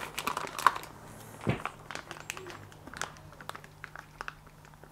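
Thin plastic transport bag crinkling and rustling as it is handled, with scattered small clicks and a soft knock about one and a half seconds in.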